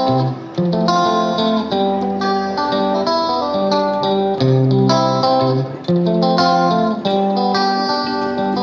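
Background music: a guitar playing a melody of plucked notes.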